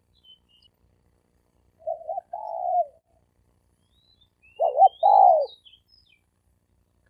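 Spotted dove cooing twice, about two seconds in and again about four and a half seconds in; each call is a short broken note followed by a longer coo that falls in pitch. Faint high chirps of a small bird sound in the background.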